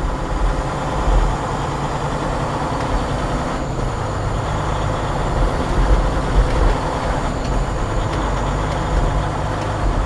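Detroit DD15 diesel engine of a 2019 Freightliner Cascadia running steadily as the truck creeps forward slowly in low gear, heard from inside the cab as a low rumble.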